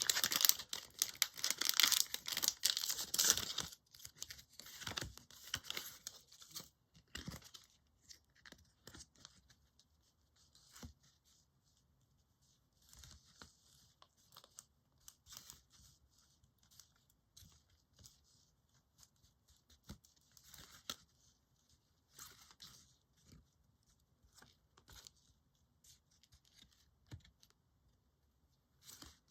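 Foil wrapper of a Pokémon trading card booster pack crinkling and tearing open for the first few seconds, then quiet, scattered rustles and light taps of the cards being handled.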